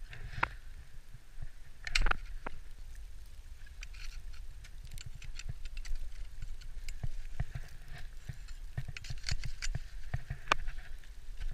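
Ice axes and climbing gear clicking, tapping and scraping on snow-covered rock during mixed climbing: irregular small knocks, a louder one about two seconds in and another near the end, over a low rumble on the microphone.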